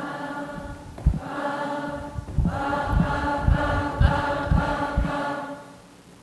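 A crowd of voices singing sustained notes together, following a solo singer in a pentatonic-scale demonstration, with low thuds of the singer hopping on the stage about twice a second. The singing fades near the end.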